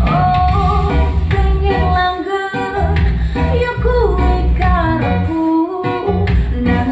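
Dangdut song with a sung vocal over heavy bass and drums, played loud through large floor-standing speaker cabinets driven by a repaired home-built SOCL power amplifier. The bass drops out briefly twice.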